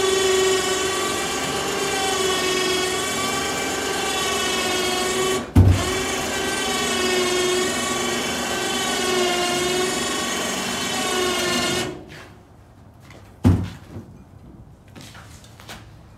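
Electric winch motor on a truck-mounted crane whining steadily as it hoists a wooden desk. It stops for a moment with a thud about five and a half seconds in, then runs again until about twelve seconds in. A single thump follows a second or so later.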